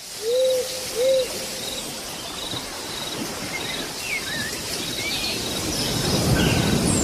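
Birds calling: two low hoots about a second apart at the start, then scattered high chirps and whistles over a steady hiss that slowly grows louder.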